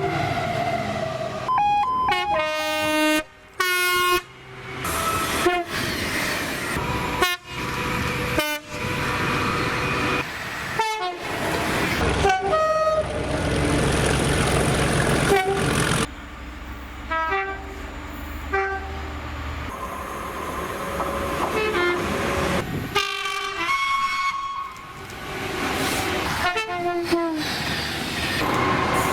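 Train horns sounding in a string of short clips, one blast after another, cutting abruptly from clip to clip, with a train's low rumble under several of them.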